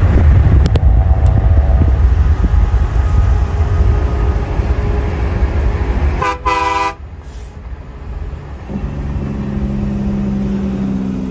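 Peterbilt semi truck passing close by with a loud low rumble, then a short air horn blast about six seconds in, and a lower steady tone near the end.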